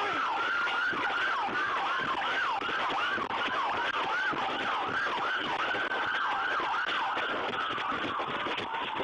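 Emergency vehicle siren, most likely a police car's, in a fast yelp: rapid rising and falling sweeps, a few a second, that slow into a longer held tone near the end.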